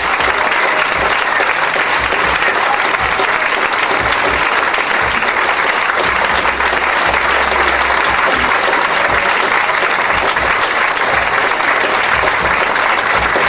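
Audience applauding steadily, a dense sustained clapping for performers taking their bow.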